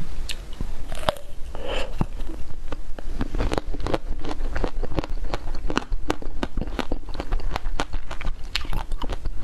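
Close-miked biting and chewing of a frozen ice-cream bar: many sharp crunches and crackling clicks, several a second.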